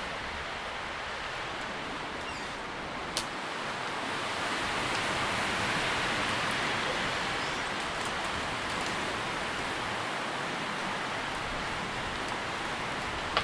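Tree leaves rustling in the wind: a steady, soft rustle that swells for a few seconds in the middle, with one faint sharp click about three seconds in.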